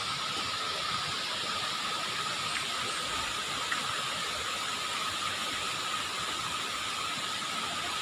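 Steady rush of water over a river's small cascades, an even hiss with a thin steady high tone running through it.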